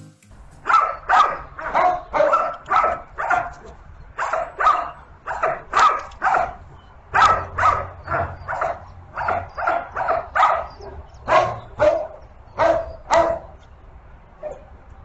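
A German Shepherd dog barking over and over in quick runs of loud barks, stopping shortly before the end.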